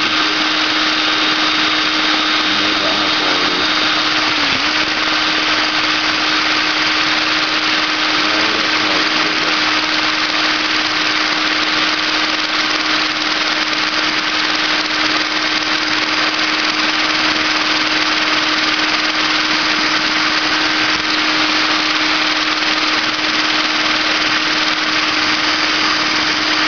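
High-speed rotary tool running steadily at a high pitch, its bit working carbon out of a blower's two-stroke cylinder exhaust port; the pitch sags briefly once as the bit bears down.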